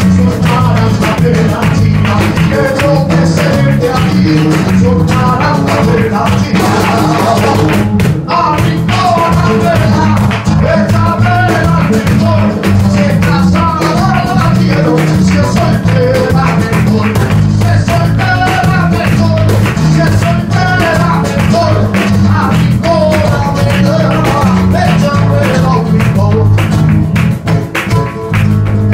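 Live flamenco: a male singer's wavering cante over flamenco guitar, with rhythmic palmas handclaps and cajón beating steadily underneath.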